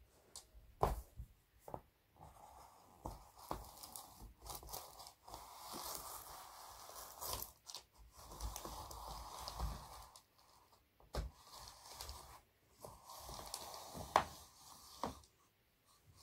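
Graphite pencil points scratching across a large sheet of paper in several long drawn strokes, two pencils at once, with the paper crinkling. There are sharp clicks as the points come down, the loudest near the end.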